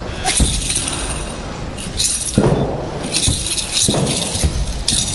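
Metallic jingling rattle of a wushu spear's head and tassel in short bursts as the spear is whipped and shaken, with a few dull thuds.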